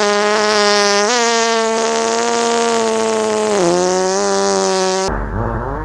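Long, drawn-out fake fart sound effect: one loud buzzy tone held at a nearly steady pitch, nudging up about a second in and sagging briefly past the middle. It cuts off abruptly about five seconds in, and a second, wavering buzzy tone from a different recording starts near the end.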